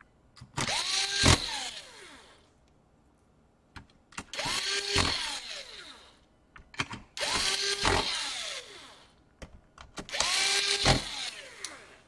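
Cordless drill-driver driving small screws into a laptop's bottom case, in four short runs. In each run the motor whine rises and then falls as the screw runs in, and there is a click inside each run.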